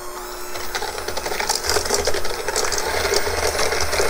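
Electric hand mixer running with its beaters in a stainless steel bowl, beating an egg into creamed butter and sugar.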